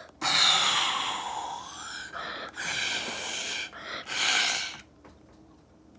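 A child blowing hard through a thin straw into slime, inflating a slime bubble. Three long breathy blows, the first lasting about two seconds, then quiet for the last second.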